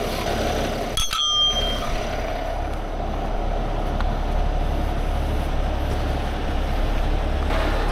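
Heavy diesel truck engine idling steadily. About a second in comes a single sharp metallic clink that rings briefly.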